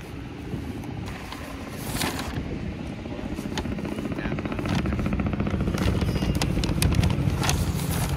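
Paper takeaway bag rustling and crinkling as it is handled, over a low outdoor rumble that swells about five seconds in.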